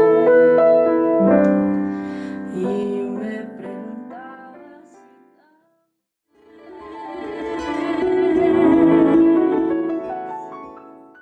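Piano accompanying a woman singer at the end of a song: she holds a final note with vibrato until about a second in, then the last piano notes ring out and fade away. After a brief silence, a sustained chord swells up and fades again.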